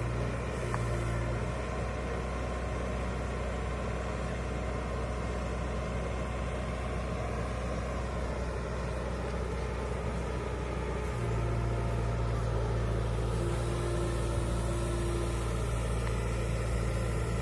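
Diesel engine running steadily at a low, even hum. About eleven seconds in, its note steps up and gets louder, then holds.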